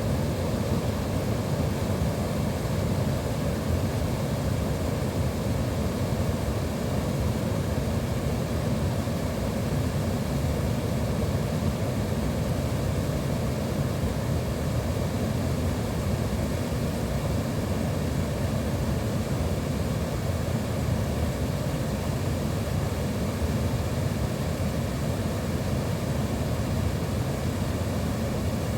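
Water pouring over a dam spillway: a steady, low rushing noise that does not change.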